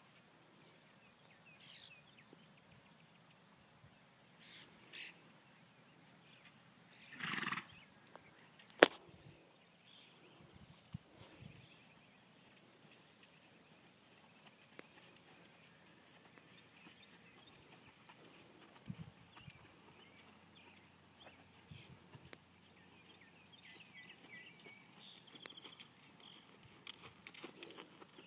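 A horse in a sand arena: one short, loud horse sound about seven seconds in, a sharp click a second later, and soft hoof steps on sand near the end as the horse comes close.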